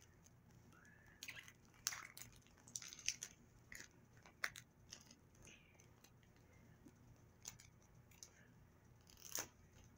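Faint, scattered clicks and crinkles of plastic packaging being handled and picked open, a dozen or so small sounds with near silence between them.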